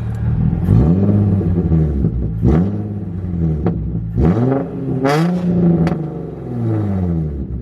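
Nissan 370Z's V6 engine revved in place: it rises from idle, holds and drops back about three times. The owner is listening for an intermittent misfire after fitting a new air filter.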